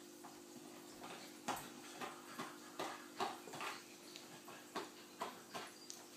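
A Border terrier nosing and pawing at the gap under a kitchen appliance on a tiled floor: a dozen or so irregular clicks and scuffs, over a steady low hum.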